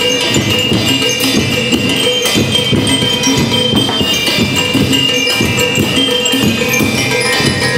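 School rhythm band playing: bell lyres carry a high, ringing melody over a steady, dense beat of drums and jingling tambourine-like percussion.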